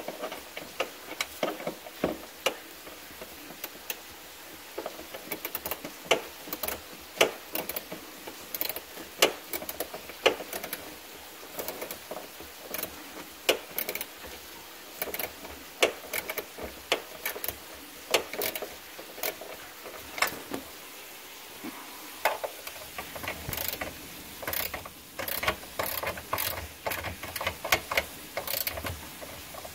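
Hand tools and metal parts clicking and clinking irregularly, sometimes several clicks in quick succession, as work goes on fitting a jet ski engine onto its mounts.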